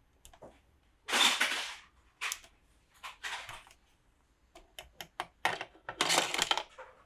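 Plastic toy pieces and packaging being handled: several short rustling bursts and a run of sharp clicks.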